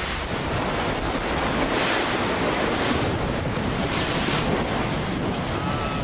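Wind buffeting the microphone and water rushing past the hull of an ocean racing yacht under sail, with the hiss of the wash swelling a few times, about two, three and four seconds in.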